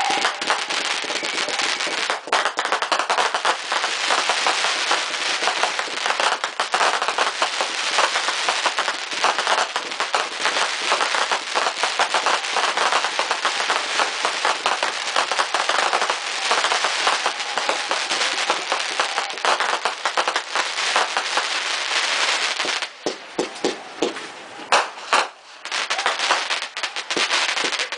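Aerial fireworks bursting in a dense, rapid barrage of many small pops and reports. After about 22 seconds it thins out to separate, louder pops.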